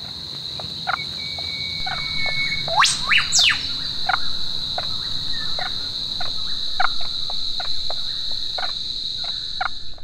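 Steady high-pitched insect drone, with many short scattered animal calls and one sharp rising-then-falling call about three seconds in. The whole ambience cuts off abruptly at the end.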